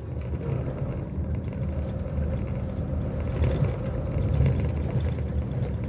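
Truck engine running steadily while driving, heard from inside the cab as a low rumble with a faint steady hum above it.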